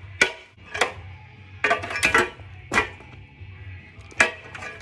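Hammer striking the rusted-through steel fender of a 1953 Ford Jubilee tractor: about seven sharp impacts at uneven intervals as the fender is knocked apart. Background music runs underneath.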